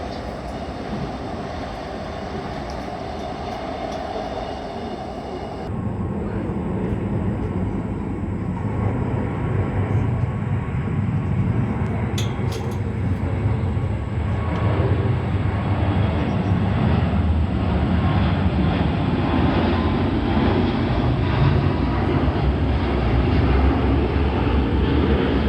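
Jet airliner engine noise: a steady low rumble that steps up about six seconds in and keeps growing louder.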